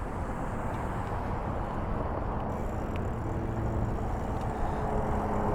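Road traffic going by: a steady rush of passing vehicles, with an engine hum coming up in the second half.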